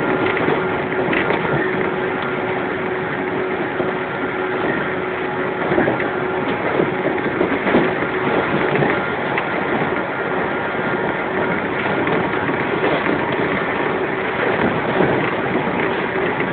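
Running noise of a 115 series electric multiple unit, heard from inside the motor car KuMoHa 115-1032, which has resistance-controlled DC traction motors. It is a steady mix of wheels on rail and motor noise with a steady hum and a few faint knocks.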